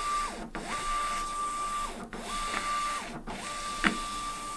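Honeywell PX940 industrial label printer running its media calibration, its motor feeding and retracting the label stock: a steady whine in runs of a second or so, pausing briefly three times. A sharp click a little under four seconds in.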